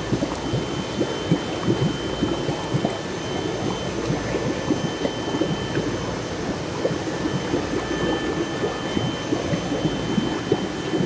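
Water in a shallow eel-rearing tank sloshing and bubbling in a dense, irregular patter of small splashes as a swarm of young eels feeds on a ball of dough, with a faint steady high whine underneath.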